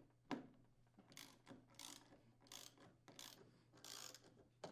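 Faint ratcheting of a 5/16" socket wrench unthreading the refrigerator hinge screws, a short clicking burst on each back-stroke, about one every two-thirds of a second.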